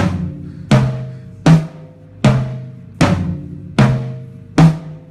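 Drum kit toms struck with single, evenly spaced hits for a sound check, seven hits about three-quarters of a second apart. Each hit rings out with a low pitched tone that dies away before the next.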